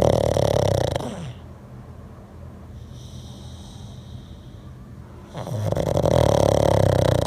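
A dog snoring loudly: a long, rough snore at the start and another about five seconds later, with a quieter breath carrying a faint high whistle in between.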